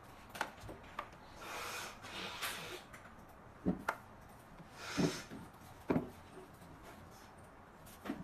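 Handling noise from an XDOBO X8 Max Bluetooth speaker being moved about in its box. A hand rubs across the casing in two longer scrapes, one early and one about five seconds in, between several light knocks as the speaker is shifted and set down.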